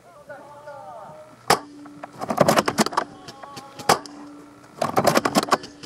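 Airsoft guns firing: a single sharp shot about a second and a half in, then two short bursts of rapid shots with another single shot between them.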